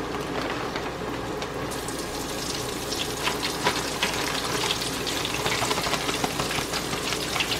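Flour-dredged chicken pieces sizzling and crackling in hot oil in a skillet, just after being dropped in. The crackling grows busier about two seconds in as another piece goes into the oil.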